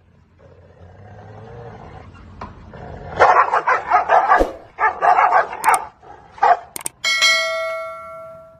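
Dogs square off through a gate: a low growl builds, then from about three seconds in comes a rapid burst of snarling and barking that lasts a few seconds. Near the end, after two sharp clicks, a bell-like notification chime rings and fades.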